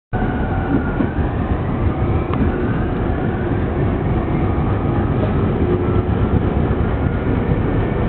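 Electric commuter train running, heard from inside the car: a loud, steady rumble of wheels on rail, with a faint high whine over it.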